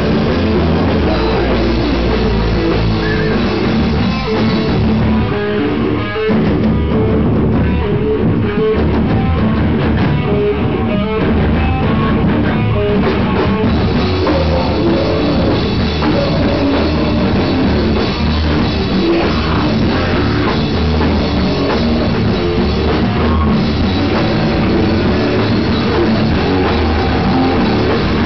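A heavy rock band playing live, with a drum kit and electric guitar at full volume. The high end thins out for several seconds in the middle, then the full sound comes back.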